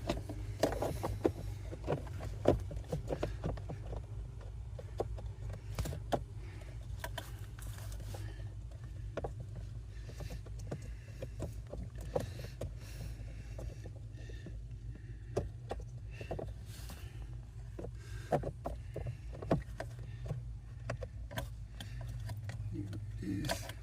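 Scattered plastic clicks and knocks of hands fitting a new blower motor resistor, over a steady low rumble.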